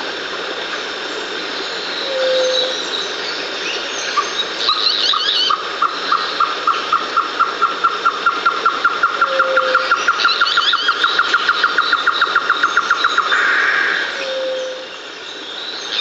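Nature ambience of birds over a steady background hiss. There are short high chirps, a brief low note every few seconds, and a long run of rapid repeated notes, about five a second, from about four seconds in until near the end.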